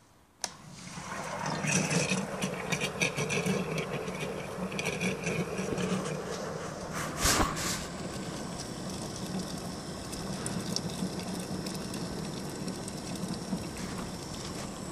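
Raritan Lectra/San MC marine toilet treatment unit started with its push-to-flush button: a click about half a second in, then its electric motors run with a steady buzzing hum. A short louder swish comes about seven seconds in.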